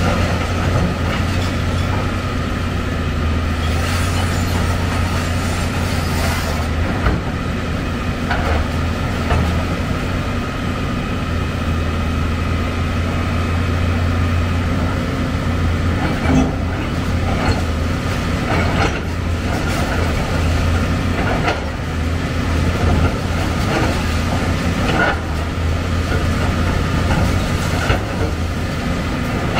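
Heavy excavator's diesel engine running steadily with a low hum and a high whine over it, with occasional knocks and clanks from the work.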